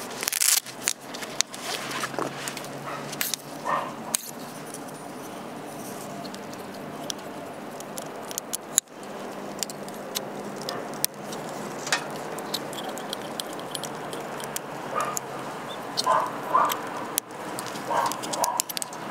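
Scattered metallic clinks and knocks of camp gear being handled. A dog barks a few short times near the end.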